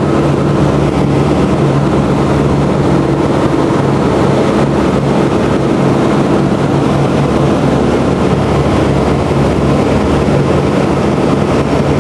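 A B-17's four Wright R-1820 Cyclone radial engines running at high power during the takeoff roll: a loud, steady, deep drone heard from inside the bomber.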